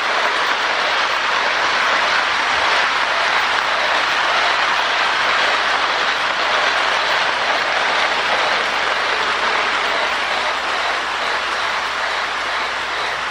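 Lionel MPC Berkshire O-gauge model steam locomotive running on three-rail track: a steady hissing rush of motor, wheels and its replacement steam sound board, with no clear chuff beat.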